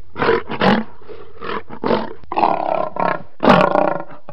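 Lion roaring: a run of short calls, about two a second.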